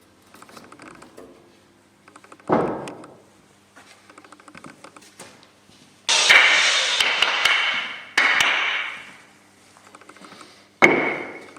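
Wood being cut for window-frame pieces: a sharp knock, then three loud bursts of cutting, the longest about two seconds, each fading away at its end.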